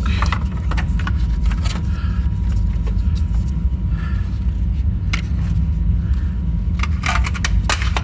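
Scattered clicks and light scrapes of hard objects being handled, over a steady low hum.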